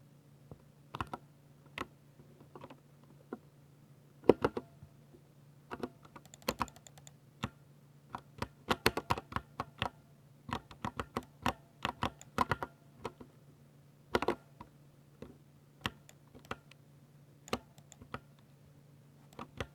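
Typing on a 60% Ducky mechanical keyboard with silver switches: irregular keystrokes, some single and some in quick runs, with the busiest typing in the middle. A faint steady hum runs underneath.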